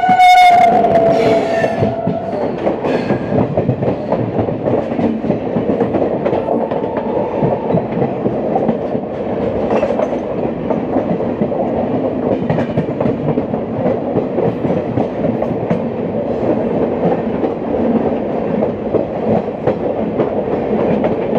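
Passenger train of ICF coaches running along the rails, a steady rumble with scattered sharp wheel clicks, heard from aboard the train. A train horn that is already sounding dies away, dropping slightly in pitch, within the first two seconds.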